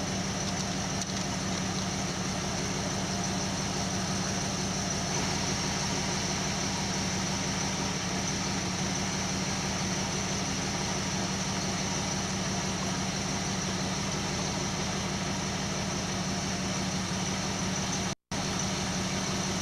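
Steady hum of a vehicle engine idling, broken by a brief dropout near the end where the recording cuts.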